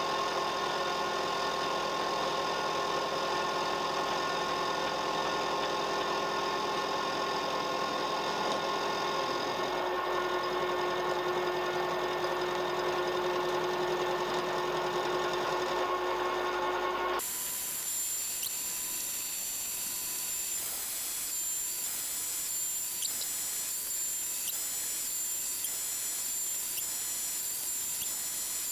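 A milling machine's 10 mm end mill cutting along the side of a small metal block, the spindle running steadily with a dense, many-toned machining noise. About two-thirds of the way through, the sound changes abruptly to a quieter, thinner high whine with faint ticks.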